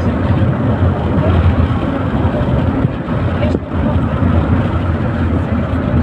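Steady low rumble of a vehicle running, with a single sharp click about three and a half seconds in.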